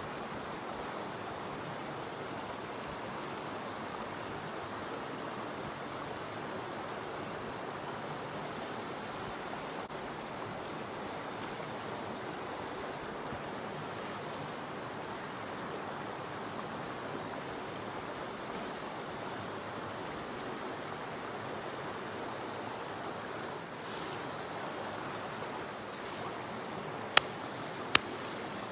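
River water flowing steadily, an even rushing hiss. Near the end come two short, sharp clicks, well above the water.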